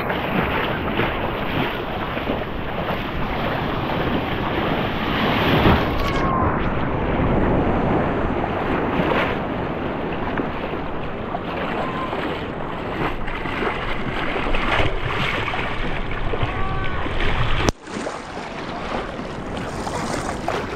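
Surf washing onto a beach, a steady rush of waves with wind buffeting the microphone.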